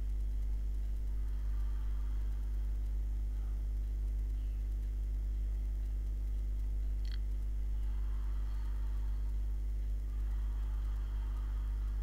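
Steady low electrical hum in the recording, with a single faint click about seven seconds in.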